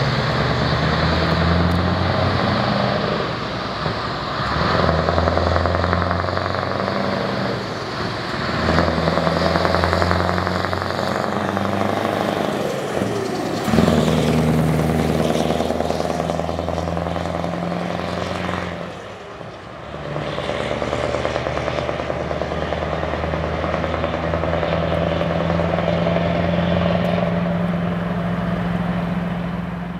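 Scania R 620's V8 diesel engine pulling the truck away and working up through the gears: the engine note runs in stretches of four or five seconds, each broken by a short dip at a gear change, with a sharp click about fourteen seconds in. After a longer dip two-thirds of the way through, it settles into a steady drone as the truck drives off.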